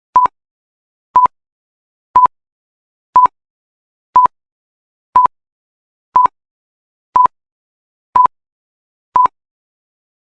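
Ten short electronic beeps of one steady mid-pitched tone, one each second, with silence between them: a workout interval timer counting down a rest period before the next exercise.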